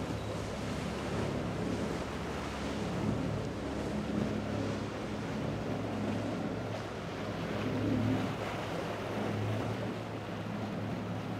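Cabin cruiser running through rough inlet chop: a steady low engine hum under the rush of waves and spray off the hull.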